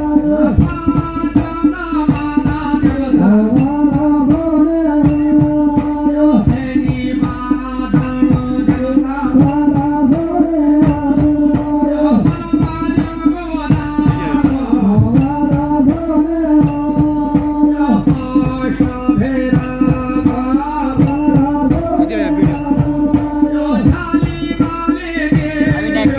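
Live Pahari folk ritual music: a dhol barrel drum beaten in a quick, steady rhythm under a held drone, with a melody line moving above it.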